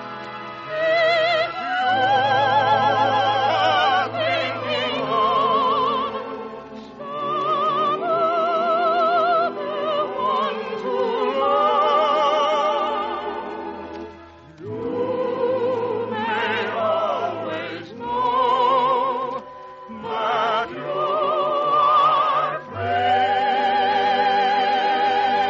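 Operetta singing in a trained, operatic voice with wide vibrato, over musical accompaniment, sung in phrases a few seconds long. The sound is thin and lacks the top end of a recording from an old radio broadcast.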